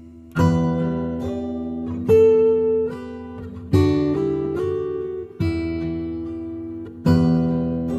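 Solo acoustic guitar playing an instrumental passage: five chords struck about every second and a half to two seconds, each left to ring and fade, with a few notes changing in between.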